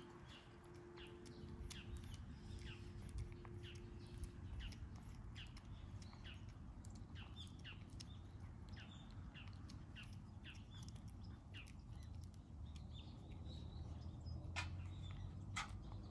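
Small birds chirping repeatedly, faint short falling chirps two or three a second, over a low steady rumble. A couple of sharp clicks come near the end.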